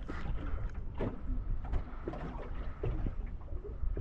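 Water lapping and splashing around a small boat, with a steady low rumble and scattered small knocks.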